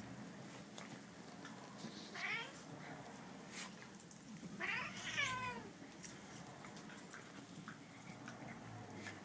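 Bengal cat meowing twice: a short call about two seconds in and a longer, wavering one about five seconds in, with faint clicks scattered between.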